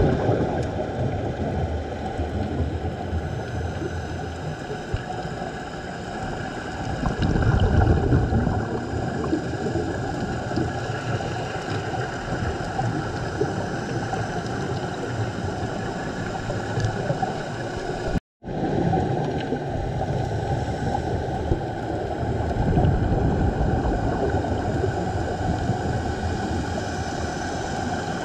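Underwater sound picked up through a camera's waterproof housing on a scuba dive: a steady rumbling hiss with a faint even hum, swelling louder about seven seconds in and again after twenty seconds, and cutting out for a moment about eighteen seconds in.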